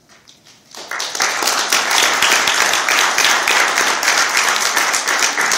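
Audience applause, breaking out about a second in: many people clapping at once.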